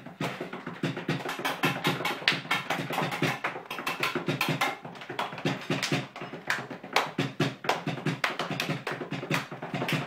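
Fast rhythmic tapping, about five sharp strikes a second.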